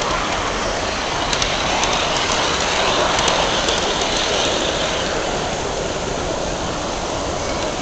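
Garden-scale model train running along its track, heard from a camera riding on it: a steady rolling rumble and hiss with a few faint clicks.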